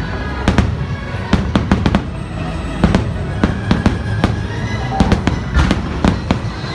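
Aerial fireworks bursting in a rapid string of sharp bangs, a dozen or more, several a second at times, with the show's music playing steadily underneath.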